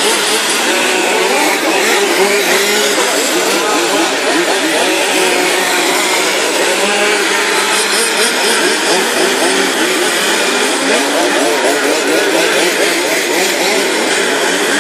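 Several 1:5 scale radio-controlled Formula 1 cars with small two-stroke petrol engines racing together, their high buzzing engines revving up and down and overlapping as they lap the circuit.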